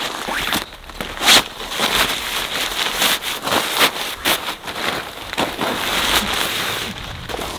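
Tent fabric and its nylon stuff sack rustling and crinkling as a packed tent is handled and pulled out of the bag, a dense run of sharp crinkles, loudest a little over a second in.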